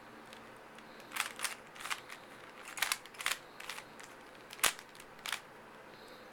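Rubik's Cube faces being twisted by hand: a run of short plastic clicks and clacks in irregular bunches, the sharpest about two-thirds of the way through.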